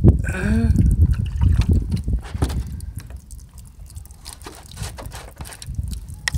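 Water trickling and dripping out of bullet holes in plastic water jugs onto a wooden board. A low rumble with knocks fills the first two seconds.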